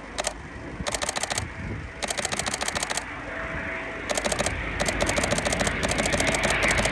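Canon 7D DSLR shutter firing in continuous-shooting bursts: about eight rapid-fire runs of clicks, each under a second long. Beneath them the rush of an approaching jet grows louder near the end.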